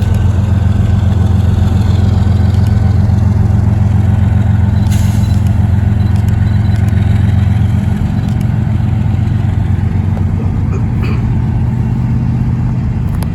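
Diesel freight locomotives running with a loud, steady low drone. The drone shifts and eases slightly about eight seconds in as the stopped train gets ready to move off again, and a short hiss comes about five seconds in.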